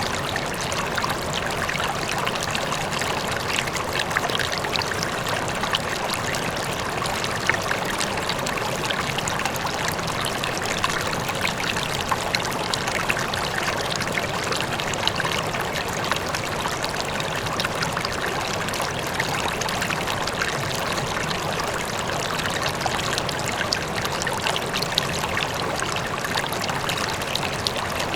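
River water flowing steadily over rocks, a constant rushing with small splashes and trickles throughout, with a faint waterfall in the distance.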